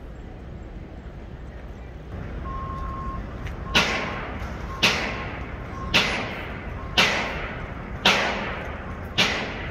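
Construction work: six heavy strikes, evenly spaced about a second apart, each ending in a short ringing tail, like a hammer on steel. Under them a machine's reversing alarm beeps faintly.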